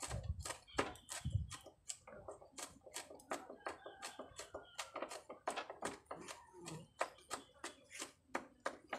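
Kitchen knife chopping green chili peppers on a wooden cutting board: a quick, steady run of blade strikes, about four a second.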